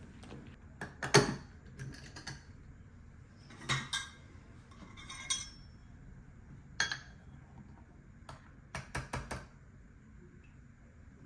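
Dishes and kitchen utensils being handled: scattered clinks and knocks, some ringing briefly, with a quick run of several near the end.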